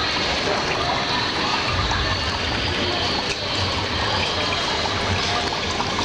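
Small tabletop decorative water fountain running: water trickles and splashes steadily as it spills from one bowl down into the next.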